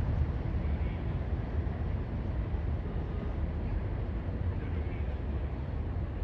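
Fire engine's diesel engine running with a steady low rumble.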